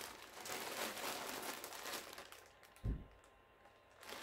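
Plastic packaging crinkling and rustling as a bagged poncho is pulled out and handled, dying away about halfway through, with a single soft low thump shortly after.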